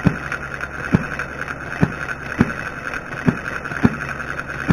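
Small hobby-built six-cycle single-cylinder model gas engine running, its flywheel spinning with a steady mechanical whir and a sharp firing pop every half second to a second, slightly uneven in spacing. It is firing regularly, with its battery ignition on the charger.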